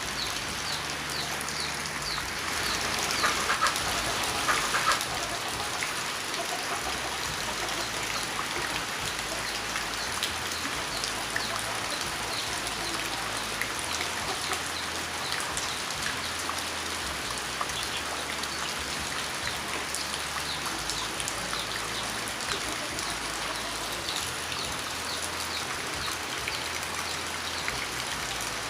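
Steady rain falling, with a dense patter of individual drops. A brief louder stretch comes about three seconds in.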